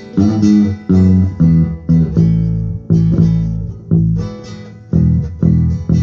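Acoustic guitar strumming chords with an electric bass guitar playing low notes underneath, about two strokes a second, without vocals.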